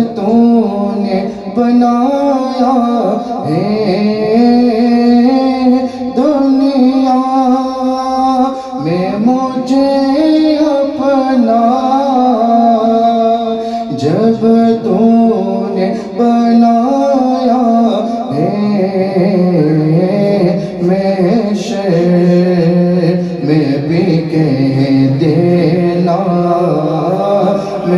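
Men chanting an Islamic devotional salaam into microphones, in long drawn-out notes that glide up and down between held tones.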